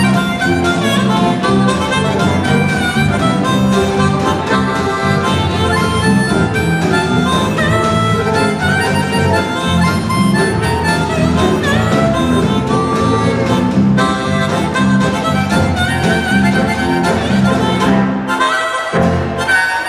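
Jug band playing an instrumental break led by a blues harmonica, over strummed acoustic guitar, electric guitar and bass. The low end drops out briefly near the end.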